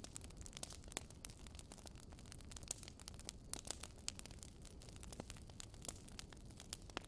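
Charcoal grill crackling under souvlaki skewers: irregular sharp pops and crackles, several a second, over a faint steady background.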